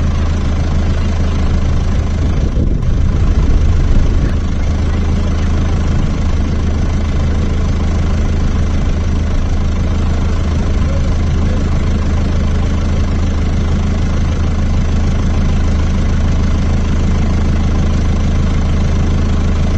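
John Deere 6400 tractor's four-cylinder turbo diesel running steadily at a constant engine speed, with a brief swell in loudness about three to four seconds in.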